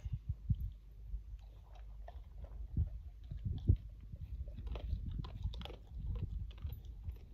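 Great Pyrenees puppy chewing and crunching food, with irregular crunches every fraction of a second.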